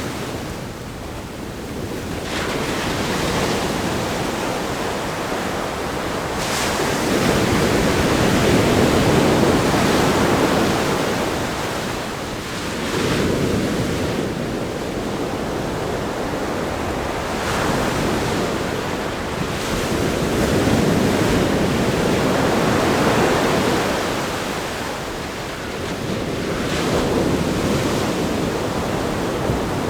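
Ocean waves breaking on a sandy beach and against a rock groin, the surf swelling and easing every few seconds with brief splashes, with some wind on the microphone.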